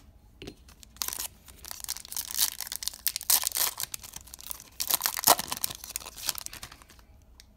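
A Topps baseball card pack's wrapper being torn open and crinkled by hand. The crackling tears and rustles start about a second in and stop near the end.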